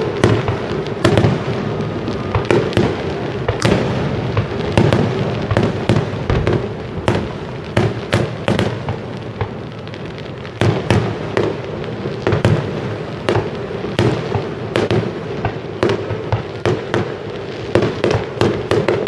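Aerial fireworks shells bursting in quick, irregular succession: a dense run of sharp bangs, several a second at times, with a brief lull about halfway through.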